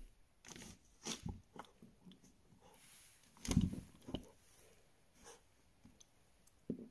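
Bernese Mountain Dog puppy chewing and biting a chew treat: irregular short crunches and clicks with pauses between them, the loudest cluster a little past halfway through.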